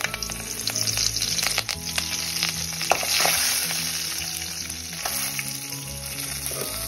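Curry leaves sizzling and crackling in hot oil in an aluminium kadai as they are tempered, stirred with a perforated metal skimmer. The sizzle is loudest about three seconds in.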